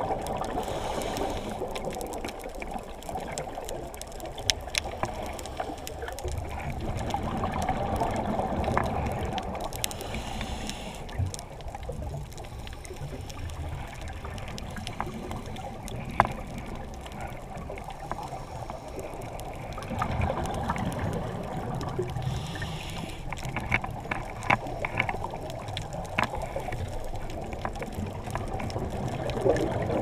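Underwater sound on a scuba dive, muffled through a camera's waterproof housing: rushing, bubbling water noise that swells louder twice, with scattered sharp clicks.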